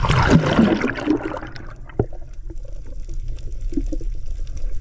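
Water splashing and pouring loudly for the first couple of seconds, then settling to quieter sloshing, with a single sharp knock about two seconds in.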